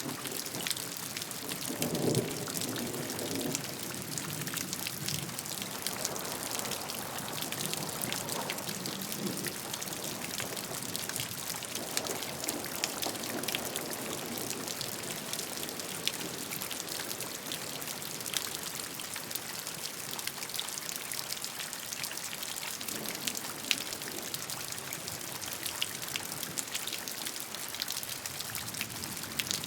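Steady rain: a dense even hiss full of sharp individual drop hits, with soft low swells rising and fading now and then.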